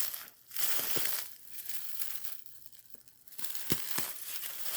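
Footsteps crunching and rustling through dry leaf litter and brush, in about three stretches with short pauses between them.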